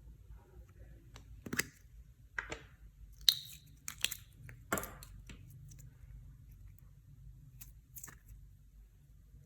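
Clear slime being worked by hand: a run of sticky clicks and crackles, the sharpest about three seconds in, thinning out after about five seconds.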